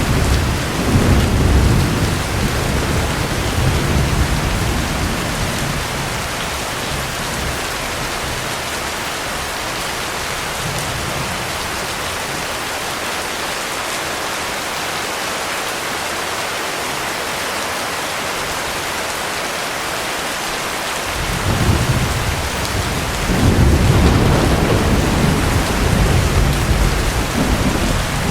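Heavy rain falling steadily, with thunder rumbling twice: once in the first few seconds, and again for longer from about two-thirds of the way through to the end.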